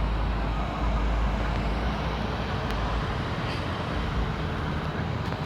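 Steady outdoor background noise with a low rumble, without speech.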